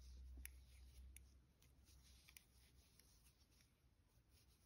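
Near silence, with faint rubbing and a few soft, scattered ticks from a crochet hook working loops through medium-weight yarn.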